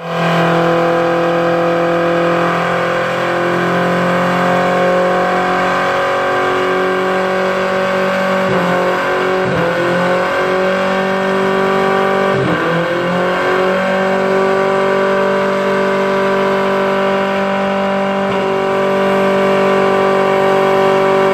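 Toyota Previa minivan's engine held at high, steady revs in a burnout, with the driven tyres spinning on the pavement. The revs drop sharply and climb back twice, around a third and then just past halfway through.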